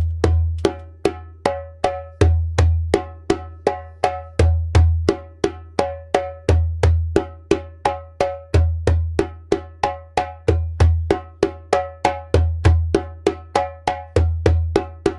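Djembe played by hand in a steady repeating six-stroke pattern: two deep bass strokes, two tones, two slaps, about three strokes a second, the cycle coming round about every two seconds.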